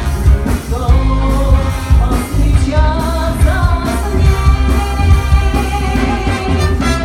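Live band playing a rock-pop song, with lead singing over heavy bass and a steady drum beat.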